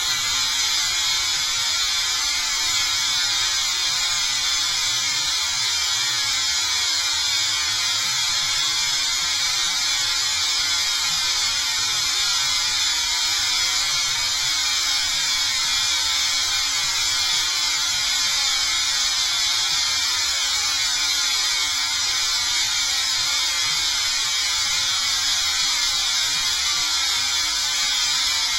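Steady, high-pitched hissing noise like static, unchanging in level or pitch, used as a meme sound effect.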